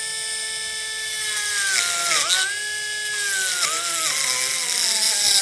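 Pencil die grinder with a small burr running at a high whine, grinding a bridge port into a Mazda 13B rotary engine's side housing. The pitch dips sharply twice as the burr bites into the metal, about two seconds in and again near four seconds, then sags lower toward the end under load.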